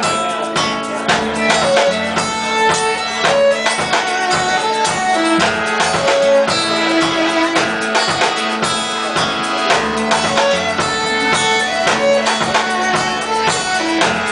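Live band playing an instrumental passage: guitar with drum kit, no singing.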